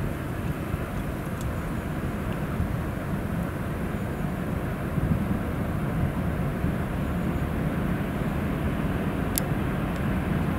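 VL11M electric locomotive hauling a freight train, giving a steady low rumble of running gear and machinery. There is one sharp click near the end.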